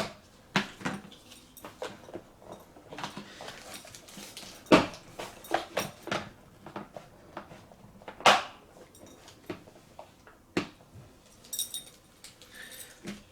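Plastic pieces of a Bakugan battle arena being handled and fitted together: scattered clicks and knocks, with two louder knocks, one about a third of the way in and one past halfway.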